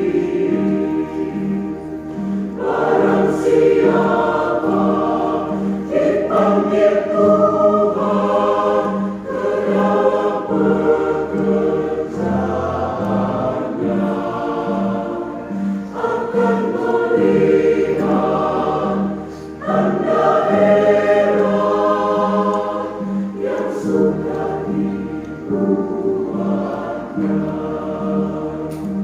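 Church choir singing a hymn in parts, the phrases swelling and breaking off every few seconds, over a low steady pulse about twice a second and a bass line that moves in steps.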